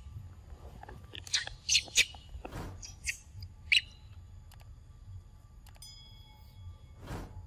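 Macaque eating a mango: a handful of short, sharp wet bites and smacks in the first few seconds, with a brief rustle in the middle and another near the end.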